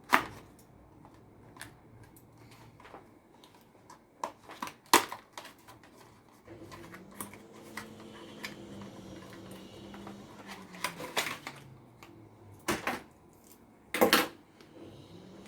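Light clicks and knocks of small computer hardware being handled during a PC build, with a few sharper taps. A low steady hum comes in about six seconds in and eases off a few seconds later.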